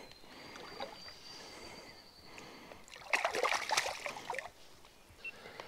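River water trickling over rocks, with a short bout of splashing in the water about three seconds in that lasts a second and a half.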